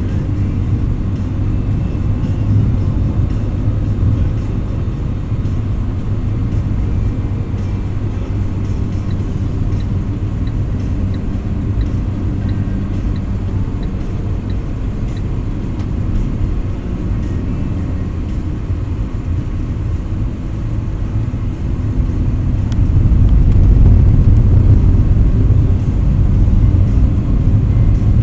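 Car engine and tyre noise heard from inside a moving car: a steady low rumble that grows louder near the end.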